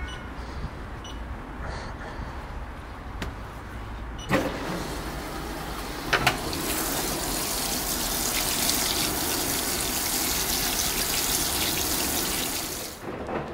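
Washing machine starting to fill: a click about four seconds in and a double click about two seconds later, then water rushing in through the inlet with a loud steady hiss that stops abruptly near the end.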